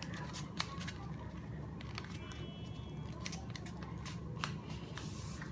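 Sheet of paper being folded and creased by hand: scattered crinkles and sharp little rustles, over a steady low hum.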